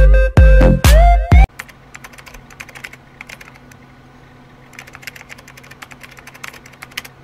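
Loud electronic music with heavy bass and a rising synth line cuts off suddenly about a second and a half in. It is followed by quick runs of keyboard typing clicks over a faint low hum, a typing sound effect for text being typed onto the screen.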